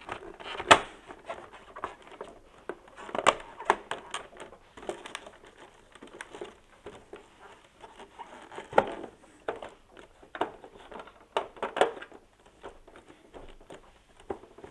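Plastic covers of a split air conditioner's indoor unit being handled and pressed into place by hand: irregular clicks, taps and light rattles, with a few sharper snaps among them.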